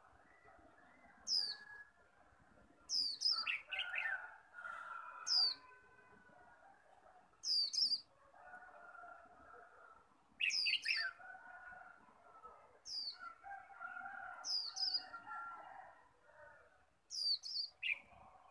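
Caged white-eyes (chim khuyên) calling and singing: about ten sharp, very high notes, each sliding quickly downward, scattered through the stretch over a softer, lower warbling chatter.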